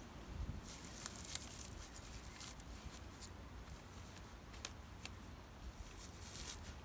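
Scattered faint clicks and crackles, bunched near the start and again near the end, over a steady low rumble of wind.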